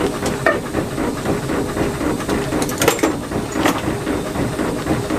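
1912 Brown and May showman's steam engine running with a fast, steady mechanical beat, a few sharper clicks standing out in the middle.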